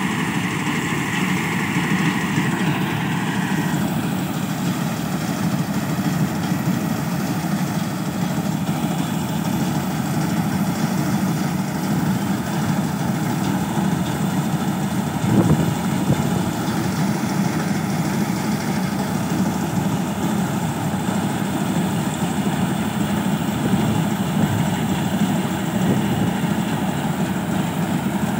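Combine harvester's diesel engine and threshing machinery running steadily as it cuts paddy, with one brief knock about halfway through.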